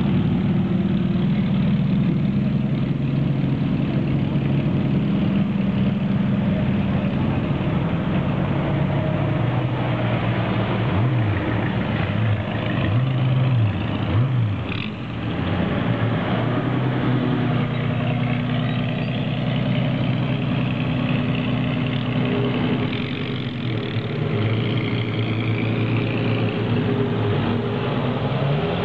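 Vintage racing car engines idling and running slowly at low revs, with a few short throttle blips that rise and fall in pitch about halfway through.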